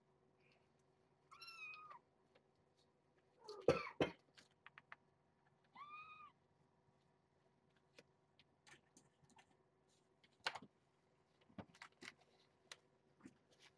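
Two short, high-pitched meows from a young kitten, one about a second and a half in and another about six seconds in. A louder cluster of knocks comes between them, and scattered soft clicks and taps follow as a hand handles the kittens on the pad.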